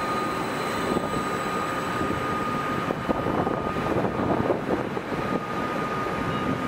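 ODEG Stadler KISS double-deck electric multiple unit moving slowly past along the platform: a steady hum and rumble of its motors and wheels, with a steady high tone running through it.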